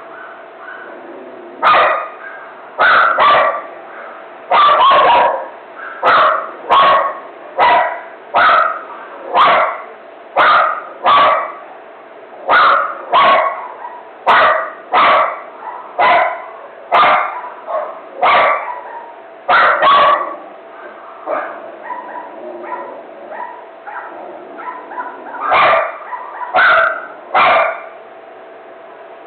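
A dog barking in a frenzy: sharp single barks about once a second, with a pause of a few seconds about two-thirds of the way through before the barking starts again.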